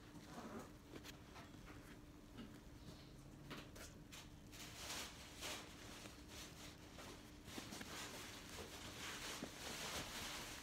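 Faint rustling, scraping and small clicks of fingers handling an Air Jordan 11 sneaker, rubbing and pressing its patent-leather and mesh upper; the handling gets busier and louder about halfway through, over a faint steady hum.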